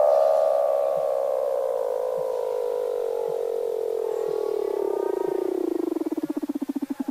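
Weddell seal call: one long descending trill whose pitch falls slowly and steadily, breaking up into a string of separate pulses near the end.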